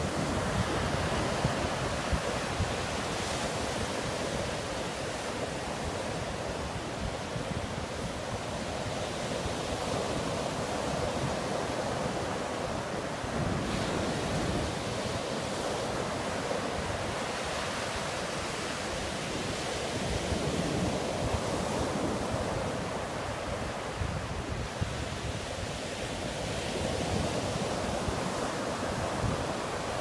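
Ocean surf breaking on a sandy beach: a steady wash of waves that swells and eases.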